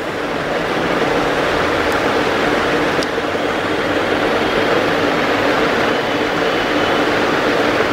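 A steady rushing noise with a faint low hum underneath, like a running fan, growing slightly louder over the first second, with one faint click about three seconds in.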